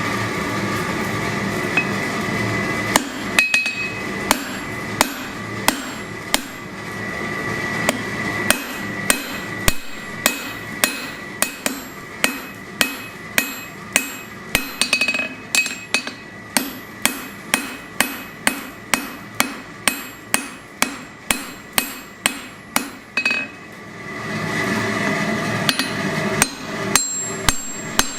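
Hand hammer forging hot steel on an anvil: sharp ringing blows at about two a second, in long runs. A steady rushing noise fills the first three seconds and a short gap about two-thirds of the way through, before the hammering starts again.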